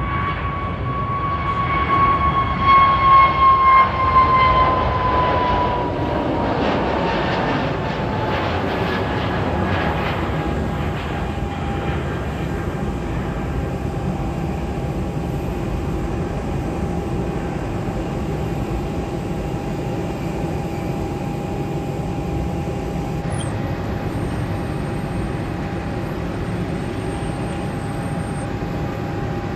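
Jet airliner engines: a high whine that slides down in pitch as the aircraft passes, loudest a few seconds in, then holds a steady whine over a continuous rumble.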